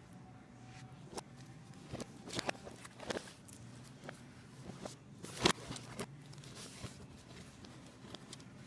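Plastic DVD cases clicking and clacking against each other as a hand flips along a row of them, in scattered knocks with the loudest about five and a half seconds in.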